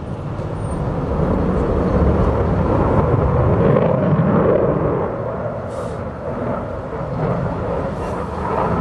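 An F-22 Raptor's twin Pratt & Whitney F119 turbofans roar during a display pass. The noise swells over the first few seconds, eases about five seconds in, and rises again near the end.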